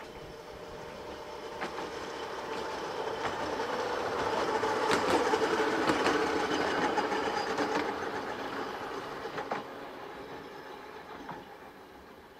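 Open-top double-deck electric tram running past on the Seaton Tramway's narrow-gauge track, drawing power through its trolley pole from the overhead wire. It hums steadily, growing louder to a peak about five to six seconds in and then fading, with a few sharp clicks from the wheels on the rails.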